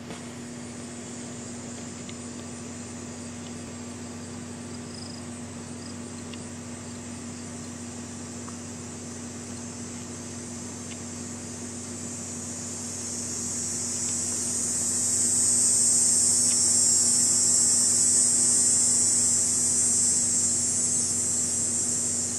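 High-pitched insect drone, swelling louder a little past halfway through and easing off near the end, over a steady low hum.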